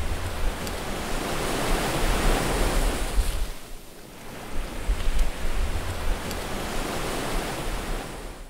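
Ambient electronic soundtrack music: a surging wash of noise over a deep low rumble, dipping about halfway through and then swelling again.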